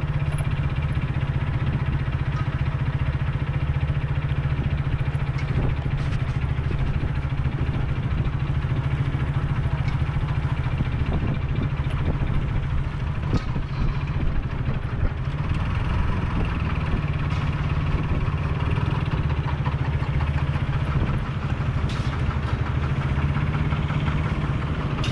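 Motorcycle engine running steadily while the bike is ridden, a constant low drone.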